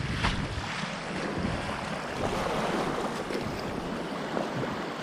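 Rushing whitewater around a kayak, with a few short splashes. Wind rumbles on the microphone and drops away within the first second.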